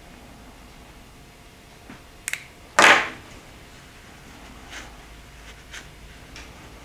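A quick double click, then a single loud knock about three seconds in as a plastic lighter is set down on a wooden workbench, followed by a few faint ticks and cloth rustles as the melted end of a nylon starter rope is pinched in a cloth.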